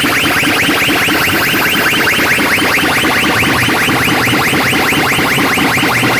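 A loud, steady electronic chirping effect: a fast, even run of short falling chirps, about nine a second.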